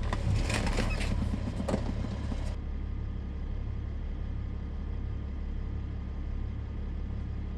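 Diesel BMW E70 X5's three-litre straight-six engine idling steadily, with light clicks and rattles over it during the first couple of seconds.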